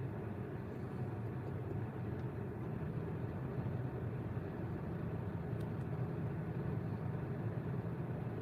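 Steady low rumble of a car driving, engine and tyre noise with no breaks or changes.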